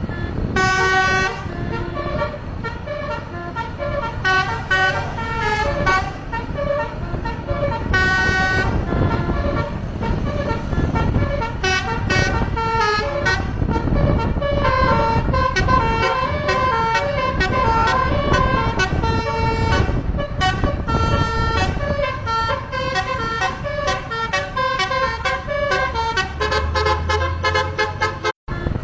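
Bus 'telolet basuri' multi-tone horn playing a fast melody of short, changing toots, over a low rumble, cutting out briefly near the end.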